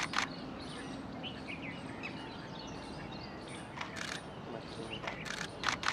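Small birds chirping and calling over steady outdoor noise, with a handful of short sharp clicks, one near the start and the rest in the last two seconds.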